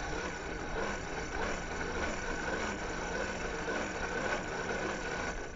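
Forge air blower running steadily, forcing air into the coal fire to burn it up, with a steady whine over a rushing noise. It cuts off suddenly near the end.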